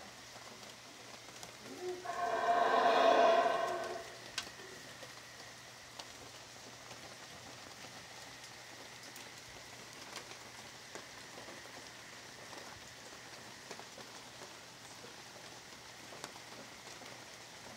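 A Yucatán black howler monkey gives one loud, pitched roar about two seconds in, lasting roughly two seconds. Behind it a steady patter of light rain goes on, with scattered drips.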